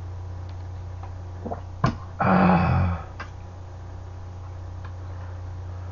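A sharp clink of a metal utensil against a saucepan, then a short, loud throaty vocal noise lasting under a second, followed by a few lighter utensil clicks. A steady low hum runs underneath.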